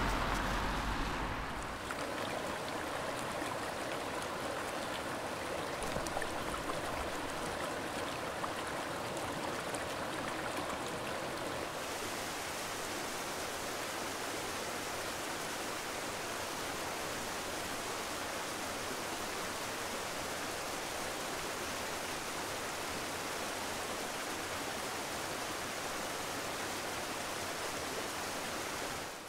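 Running water of a stream, a steady rushing and babbling, a little louder for the first second or two and turning hissier about twelve seconds in.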